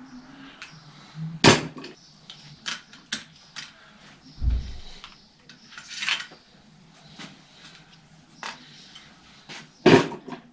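Scattered clicks, clinks and knocks of small hand tools and bicycle parts being handled during wiring work on a bicycle, with a sharp knock about a second and a half in and a dull thud about four and a half seconds in.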